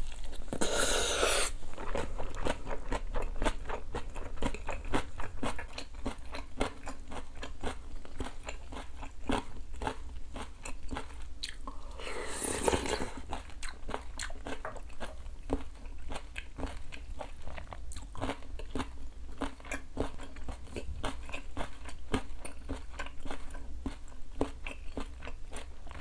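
A person chewing a mouthful of rice mixed with crunchy julienned radish salad (musaengchae), fast wet crunching close to a clip-on microphone. Two louder rushing noises about a second long come at the start and about halfway through.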